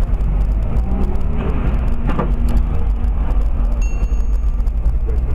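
A car driving in city traffic, recorded by a dashcam inside the cabin: a steady low rumble of engine and road noise. A brief high electronic tone sounds about four seconds in.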